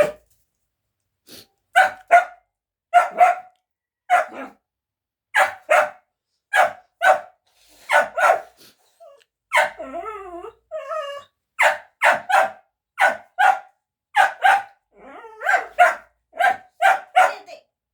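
A dog barking repeatedly, mostly in quick double barks about once a second, with a wavering whine around the middle.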